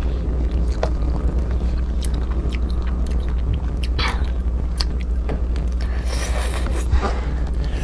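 Close-miked biting and chewing of small crabs in spicy chili sauce, with scattered crunchy clicks of shell. Partway through come wet cracking and tearing sounds as a crab is pulled apart by hand, all over a steady low hum.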